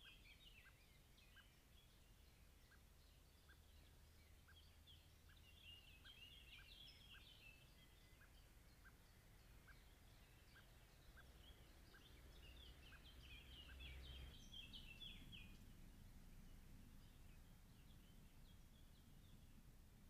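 Faint birdsong from several wild birds, with a short high note repeating about every half second through the first two thirds, over a low rumble.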